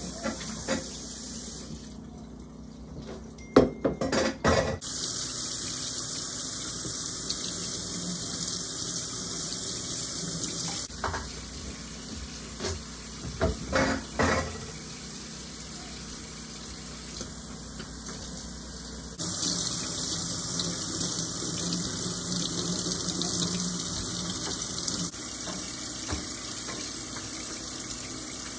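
Kitchen tap running into a stainless steel sink while vegetables are rinsed under the stream. The rush of water gets louder and softer as hands and produce move in and out of it, with short clusters of knocks and clatters about four seconds in and again around twelve to fourteen seconds.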